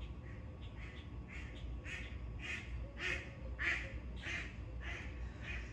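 A duck quacking over and over, about two quacks a second, loudest about three to four seconds in.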